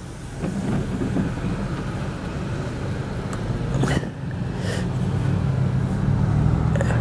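Car engine heard from inside the cabin as the car pulls away and gathers speed, its low hum growing steadily louder. A few light clicks come about four seconds in.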